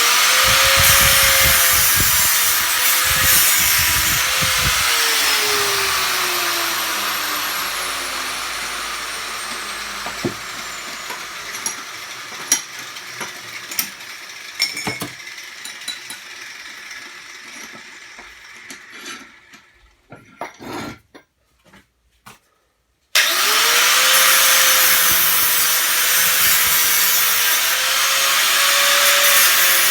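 Electric power tool used to cut and separate scrap copper and brass: it runs loud, is switched off about four seconds in and spins down slowly over several seconds with a falling whine. A few sharp knocks of metal being handled follow, then the tool is switched on again about 23 seconds in and runs loud.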